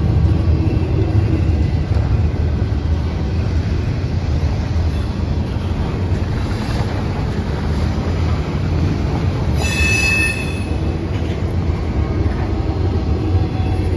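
Freight train rolling past on the rails, a steady low rumble of wheels, with a brief high-pitched wheel squeal about ten seconds in.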